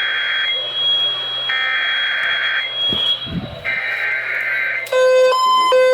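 Emergency Alert System SAME header: raspy digital data bursts about a second long with one-second gaps, the tail of one burst and then two more, over a hiss and a steady high whistle. Near the end a buzzy alert tone starts, alternating between a lower and a higher pitch.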